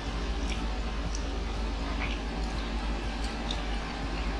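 Quiet eating sounds: scattered soft mouth clicks and smacks as two people chew street food, over a steady low hum.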